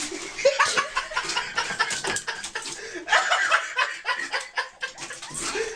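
People laughing in short, choppy bursts of chuckles and snickers.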